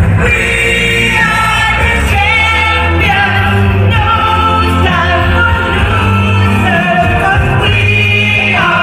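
Live band music with singing, amplified through a PA system in a hall, with a strong steady bass under the vocals.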